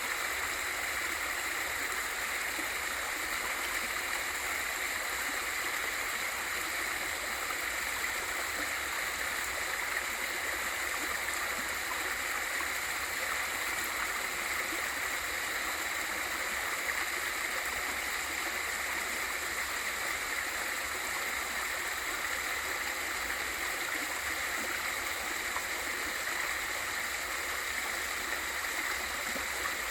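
Small waterfall pouring into a mountain stream: a steady, even rush of falling and flowing water.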